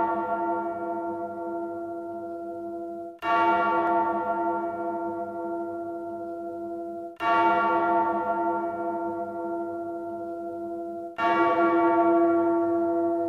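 A deep bell tolling, struck about every four seconds. Each stroke rings on and slowly fades before the next.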